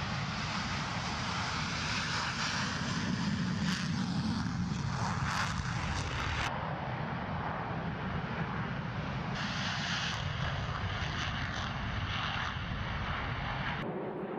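Aircraft engine noise, a steady rushing drone that changes abruptly in tone about six and a half and nine and a half seconds in.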